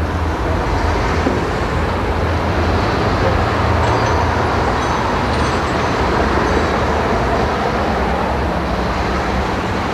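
Steady road traffic noise: a continuous low rumble under an even hiss.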